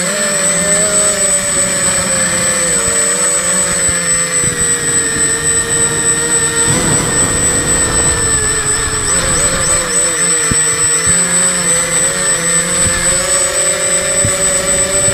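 Quadcopter's electric motors and propellers buzzing in flight, the pitch wavering up and down as the throttle changes, with a steady thin high tone over it.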